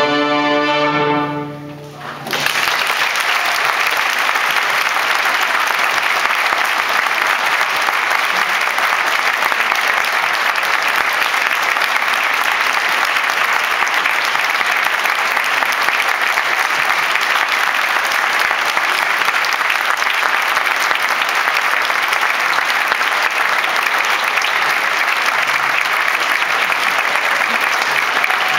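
A youth string orchestra holds its final chord and releases it. About two seconds in, the audience breaks into steady applause.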